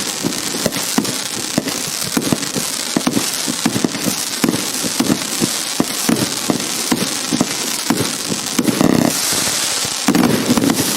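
Consumer firework cake (Hallmark Fireworks "Organised Chaos") firing shot after shot, several sharp bangs a second over constant crackling. The bangs bunch into denser volleys about nine and ten seconds in.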